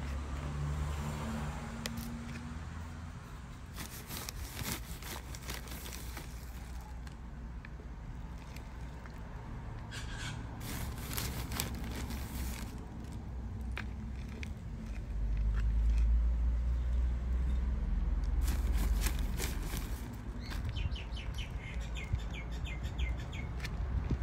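A garden trowel scraping and scooping soil in a plastic pot, in noisy bursts of a second or two, over a low rumble that swells for a few seconds past the middle. A quick run of light ticks comes near the end.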